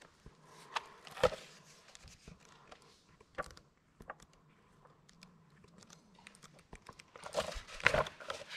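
Footsteps in a small room, with scattered sharp crunches and knocks and a denser run of crunching steps near the end.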